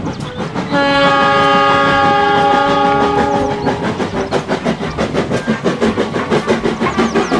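Steam locomotive dressed as Thomas the Tank Engine sounding one long, steady whistle blast of about three seconds. Under the blast and after it, the running train gives a fast, even, rhythmic chuffing and clatter.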